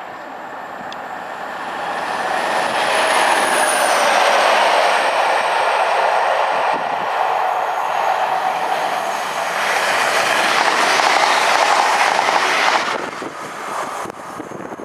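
Locomotive-hauled train passing close at speed: wheel and rail noise builds, a high whine drops in pitch about four seconds in as the locomotive goes by, and the noise falls away sharply near the end as the short train clears.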